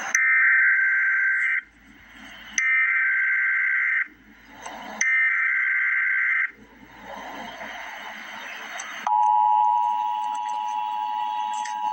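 Emergency Alert System SAME header: three bursts of rasping digital data tones, each about a second and a half long and about a second apart. About nine seconds in, the steady two-tone EAS attention signal begins.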